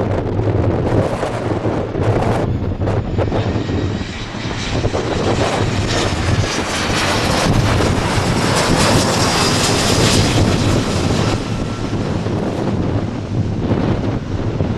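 Jet airliner's engines passing close by, building to a peak about eight to ten seconds in and then easing off, with a faint whine sliding in pitch. Strong wind buffets the microphone underneath.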